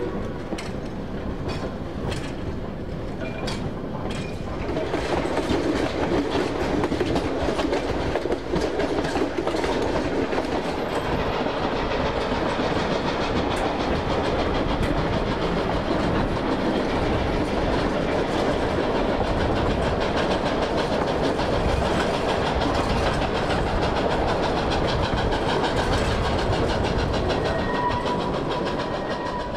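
Narrow-gauge K-28 steam train running on the rails: a steady clatter of wheels and running gear that grows louder about five seconds in and begins to fade near the end.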